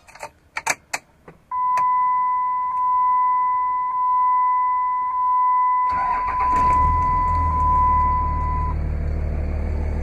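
A few sharp clicks, then a dashboard warning chime pulsing about once a second. About six seconds in, the Dodge Ram 3500's 24-valve Cummins turbo diesel inline-six cranks and starts, settling into a steady idle rumble.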